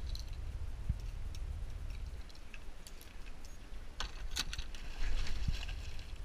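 Light clicking and rattling of fishing tackle and gear being handled in a jon boat, busiest in a cluster about four to five and a half seconds in, over a steady low rumble.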